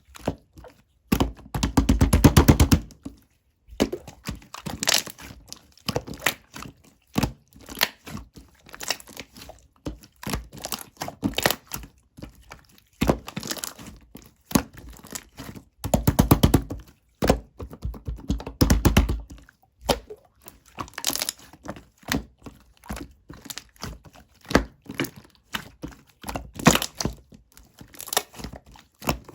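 Slime being pressed, folded and squeezed by hand, giving repeated sharp clicks and pops of trapped air. Several longer runs of rapid crackling clicks stand out along the way.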